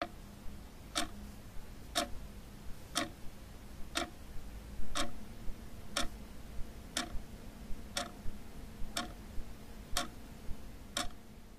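Clock ticking steadily, one sharp tick a second, over a faint hum, with one brief louder thump about five seconds in.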